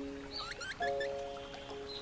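Calm background music of long held notes that change to a new chord about a second in, with birds' short, quick chirps layered over it.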